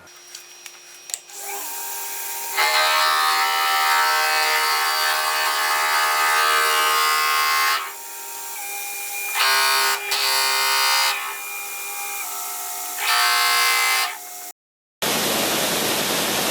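A power tool running with a steady, many-toned whine that stops and starts in several bursts. Near the end an edit cut is followed by a steady, rough wood-cutting noise.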